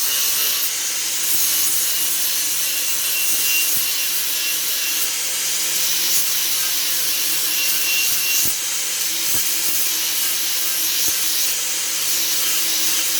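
Electric grinder running steadily, its wheel grinding down deer antler in a continuous rasp over the motor's hum.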